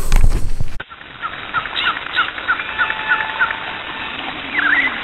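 A loud noise cuts off abruptly under a second in. It is followed by birds chirping: a run of short, evenly spaced chirps, then two louder slurred calls near the end.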